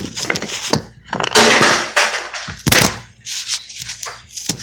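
Phone handling noise: a hand covering and gripping the phone, with a string of sharp knocks and a rubbing scrape against the microphone about a second and a half in.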